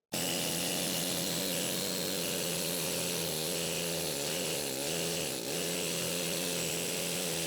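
Pneumatic air needle scaler running continuously, its needles hammering on the cast-iron grinder base to chip off loose paint: a steady, even buzzing clatter.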